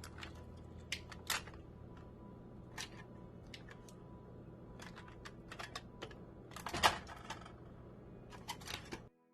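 Scattered light clicks and taps of a utensil against a metal baking pan while chicken is basted with its pan juices, with one louder clatter about seven seconds in, over a steady low hum.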